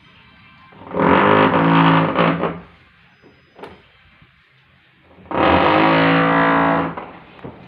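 Two long, harsh buzzing tones from a machine, each steady in pitch and about a second and a half long, about four seconds apart.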